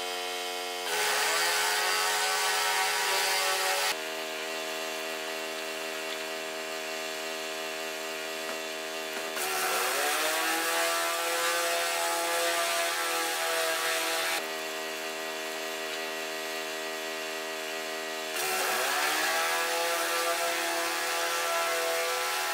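High-pressure washer running steadily while a rotary surface cleaner sprays a metal roof. About a second in, just before halfway and near the end, the sound gets louder and the machine's note dips and then recovers as the load comes on. It drops back to a quieter steady running in between.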